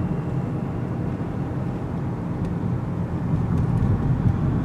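Steady low rumble of a car heard from inside the cabin while driving at town speed: engine and tyre noise with no other event standing out.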